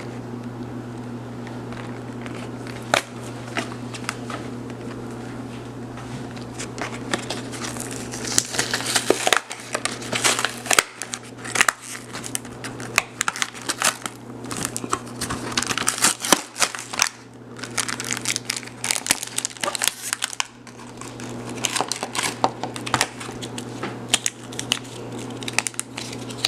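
Plastic toy packaging crinkling and crackling as a blind-bag five-pack is opened by hand. There are a few scattered crackles at first, then dense rustling from about eight seconds in, over a steady low hum.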